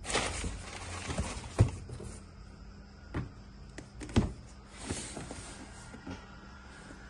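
Camera box and packaging being handled: brief rustles and a few sharp knocks and taps, the loudest two about a second and a half and four seconds in.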